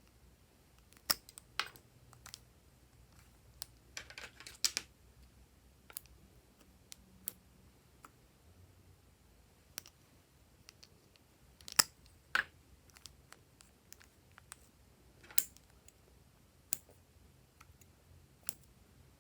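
Scattered small, sharp clicks and taps at irregular intervals, with a short scratchy, crackly stretch about four seconds in.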